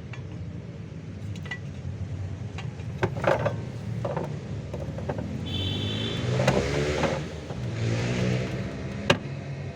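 Sharp metallic clicks and knocks of a hand tool working the fuel pump's locking ring, the loudest near the end, over a steady low hum; a vehicle passes by in the middle, rising and fading over a couple of seconds.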